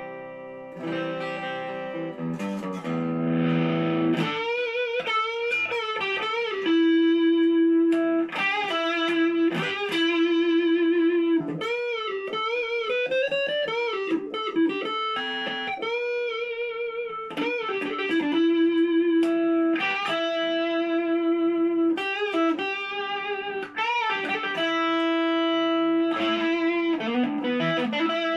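Orville by Gibson Les Paul electric guitar with '57 Classic humbuckers, played through a small Boss Katana amp. It opens with a few held chords, then a lead line of single notes with string bends and wide vibrato on the sustained notes.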